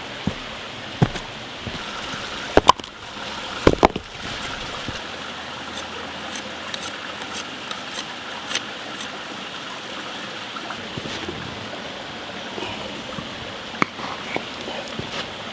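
Steady rush of running water from a forest creek, with a few sharp knocks and clicks in the first four seconds and lighter ticks later.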